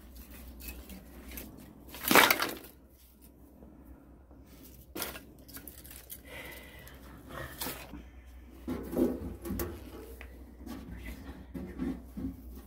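Scattered knocks and clatter from objects being handled, with one loud crack about two seconds in and a run of quicker knocks near the end.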